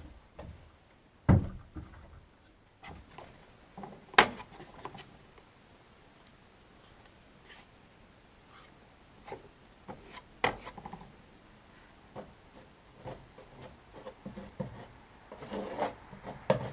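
Irregular knocks, taps and light rubbing from hand work on wood and materials, with a dull thud about a second in and a sharp knock about four seconds in.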